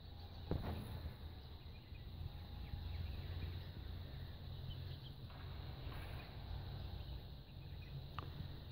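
Outdoor ambience: a steady low rumble with a few light clicks, one about half a second in and one near the end.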